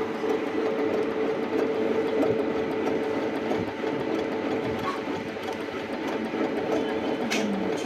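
Singer C5605 computerized sewing machine running steadily, stitching a wide zigzag through fabric, with an even mechanical hum.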